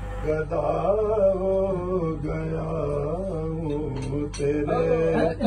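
A man reciting a naat, a devotional poem in praise of the Prophet, sung by one voice in long held notes with a slow, drawn-out melody.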